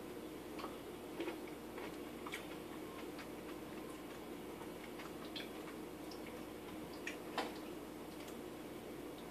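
Faint, irregular light clicks and taps of cut fruit pieces being put and pressed into a plastic Vitamix blender jar, the sharpest about seven seconds in, over a steady low hum.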